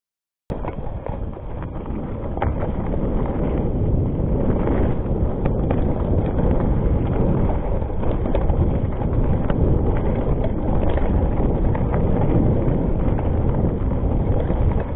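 Wind buffeting a helmet or handlebar camera's microphone on a fast mountain-bike descent, with tyres rolling over rock and dirt and the bike rattling and clicking over the bumps. It starts abruptly about half a second in.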